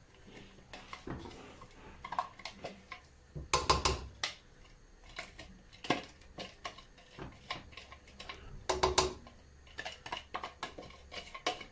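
A spoon scraping and tapping chopped onion and garlic out of a plastic tub into a stainless steel pot: a string of irregular light taps and knocks, with busier clusters about four seconds in and again near nine seconds.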